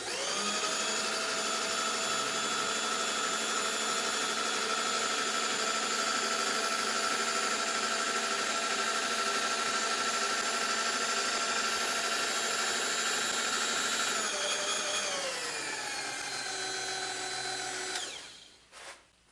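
An electric motor-driven tool runs at a steady high speed with a whine. About three-quarters of the way through its pitch drops, it runs lower for a few seconds, then it winds down to a stop near the end.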